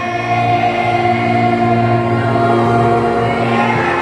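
Children's choir holding one long sustained chord, the pitches steady throughout, released near the end.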